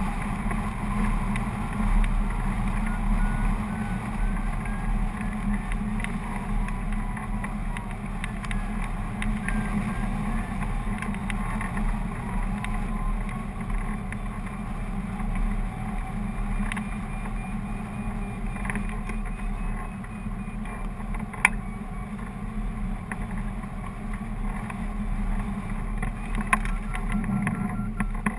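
Steady rushing and rumbling of airflow over a hang glider's keel-mounted camera in flight. Faint rapid beeping that slowly slides up and down in pitch is typical of a variometer signalling climb. There are two sharp ticks in the second half.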